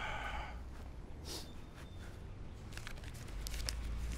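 Paper banknotes being handled and counted out, with a few light crinkles, over a low steady rumble that grows louder near the end.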